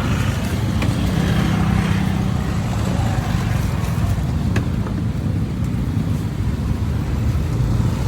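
Steady low rumble of road traffic, with an engine hum over the first few seconds and a few faint clicks.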